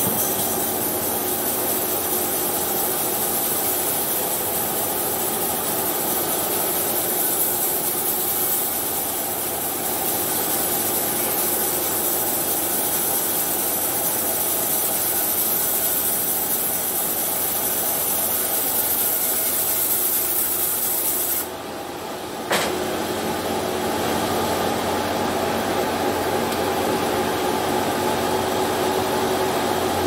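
Truck-mounted bandsaw mill running and cutting coconut wood: a steady, hissing rasp. A little past two-thirds of the way in, the hiss drops away for about a second and a sharp knock follows, then the saw runs on.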